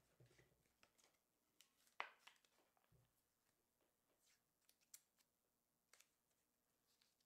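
Near silence: room tone with a few faint scattered clicks and taps, the sharpest about two seconds in.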